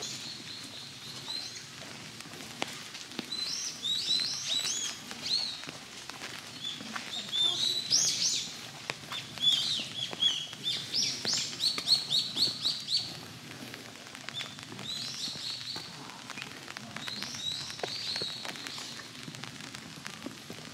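Songbirds chirping in bursts of quick, repeated high notes, loudest about halfway through, over a soft steady hiss of light drizzle.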